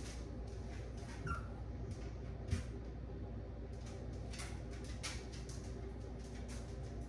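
Puppies moving about, with many small scrabbling and rustling clicks, a brief high squeak about a second in and a thump about two and a half seconds in, over a steady low hum.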